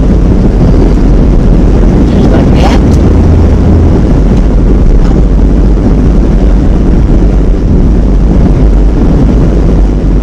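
Loud, steady low rumble of a van on the road: road, engine and wind noise.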